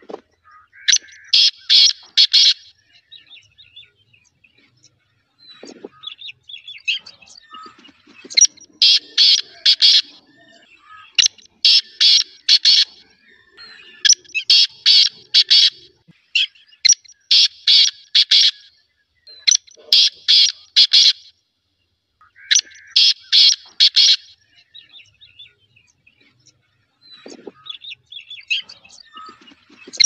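Black francolin (black partridge) calling: loud phrases of four or five quick, harsh notes, repeated every two to three seconds, with fainter chirps between the phrases.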